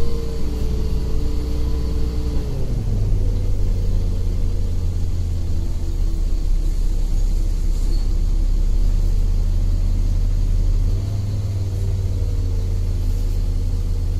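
City bus engine and tyre rumble heard from inside the passenger cabin while driving. The engine note drops about two and a half seconds in, then runs steady.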